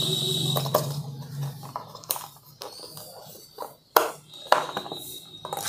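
Scattered sharp plastic clicks and light handling noise as in-ear earphones are pried out of a molded plastic packaging tray, the sharpest click about four seconds in.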